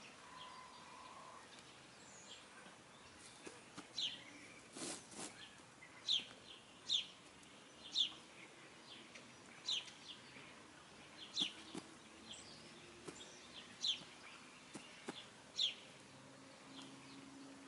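Short, sharp bird chirps repeating every second or so over a faint outdoor background, with a brief rustle about five seconds in.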